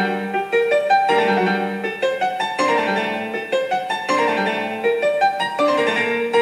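Instrumental background music, a continuous run of pitched notes.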